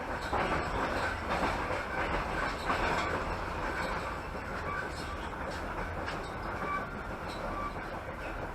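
Passenger train carriage running along the track, heard from aboard: a steady rumble of wheels on rails with light clicks over the rail joints.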